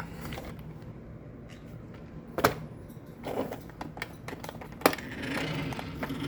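Sharp clicks and light knocks from handling a small battery-powered toy car and its switch, then the toy's small electric motor starting to whir about five seconds in.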